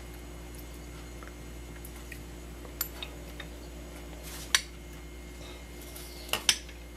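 Sharp clicks and knocks of a plastic handheld citrus squeezer being worked over a ceramic bowl and set down on a tiled counter: a couple of light clicks about three seconds in, a louder knock midway, and two close knocks near the end, over a steady low hum.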